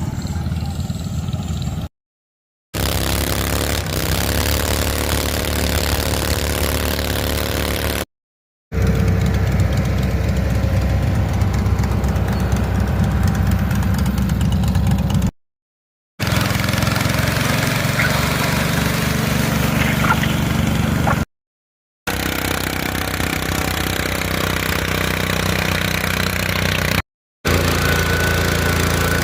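Lawn mower engines running steadily in a string of short clips, the sound cutting out completely for a moment five times between them.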